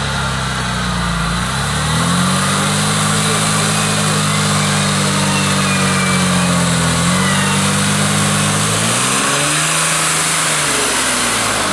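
Mercedes G-Class off-roader's engine revving under load as it crawls through mud and water, its pitch rising about two seconds in, holding, climbing again and dropping back near the end. A steady hiss of wheels churning mud runs under it.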